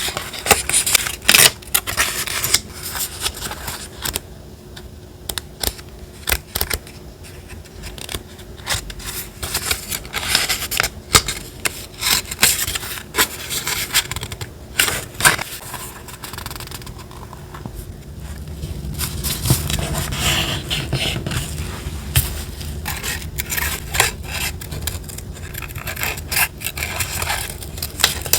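Paper being handled for a collage journal: rustling, rubbing and scraping of paper and stickers against the page, with many short sharp crinkles. A low rumble joins about two-thirds of the way through.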